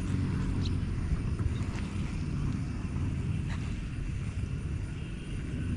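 Wind buffeting an action-camera microphone in open country: a steady, uneven low rumble, with a couple of faint clicks.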